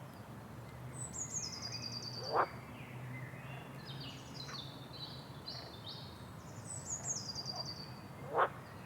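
Rainforest birds calling over a steady low background hum: a quick descending series of high notes heard twice, a run of stepped whistled notes in between, and two loud, short calls that sweep sharply upward, one early and one near the end.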